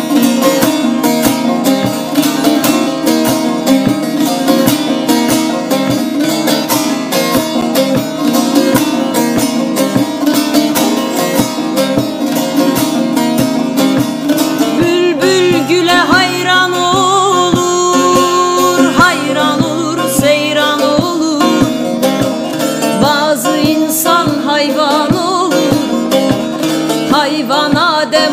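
Two bağlamas (long-necked Turkish saz lutes) playing a fast, densely plucked folk melody. About halfway through the plucking thins and a wavering, ornamented singing voice joins the strings.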